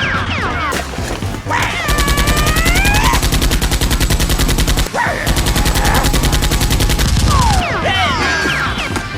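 Two long bursts of rapid machine-gun fire sound effect, the first about 3 seconds and the second about 2.5 seconds, with a brief break between them. Background music plays around them.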